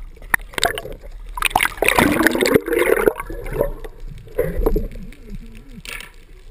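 Sea water sloshing and gurgling around a camera that moves at the surface and then dips just under it. Irregular splashes are loudest about two seconds in, then settle to a quieter churn.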